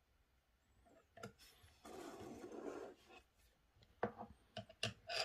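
Small objects handled on a wooden desk: a scraping rub lasting about a second, then a few light knocks and clicks near the end as an 18650 battery cell is picked up.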